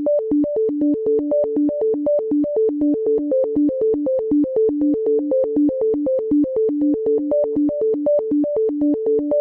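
Intro music: a fast, steady run of short repeating notes, about five a second, cycling over a few pitches in a synthesizer-like arpeggio.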